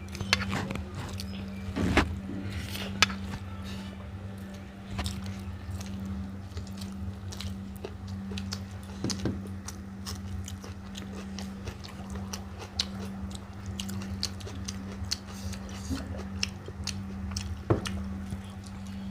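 Close-up eating sounds of rice and egg curry: chewing, biting and wet mouth smacks, with scattered sharp clicks, over a steady low hum.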